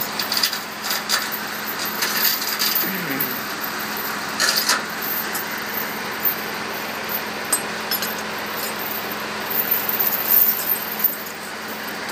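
Steel log-binding chains clinking and rattling as they are handled and thrown over a load of logs, in scattered bursts, over the steady hum of an idling truck engine.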